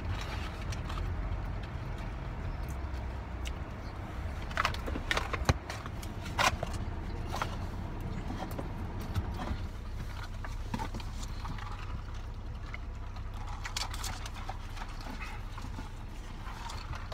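Waterfowl calling outside the car: a few short, sharp calls about a third of the way in and a few more later, over a steady low rumble.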